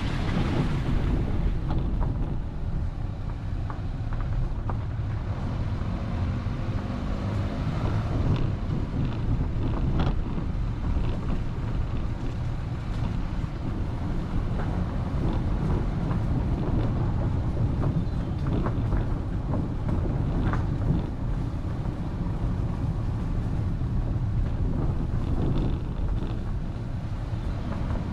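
Wind buffeting a GoPro mounted on a moving vehicle, with a steady low rumble of road and engine noise underneath.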